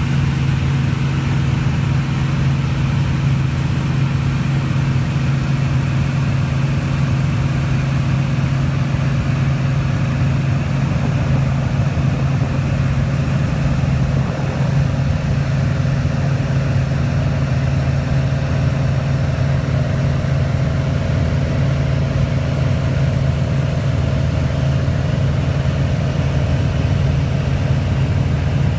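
Light single-engine airplane's engine and propeller running steadily in flight, heard from inside the cabin as a loud, even low hum of constant pitch.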